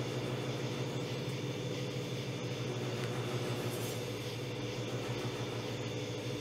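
A machine's electric motor running steadily with a low, even hum and a light hiss over it.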